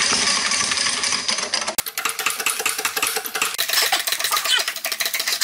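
Hydraulic shop press and its pump running as the ram presses a bearing race onto a Massey Harris steering worm shaft, a fast even clatter of clicks over a steady hum. The sound changes abruptly about two seconds in.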